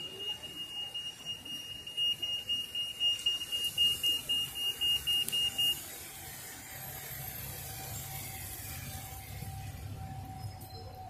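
Pedestrian crossing's audible signal beeping: a fast, even run of high-pitched beeps, about three a second, meaning the crossing is showing green to walkers; it stops about six seconds in.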